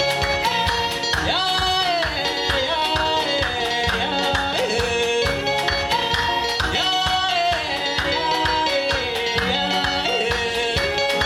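Band music with a steady, even beat and a sung melody line sliding between notes over it.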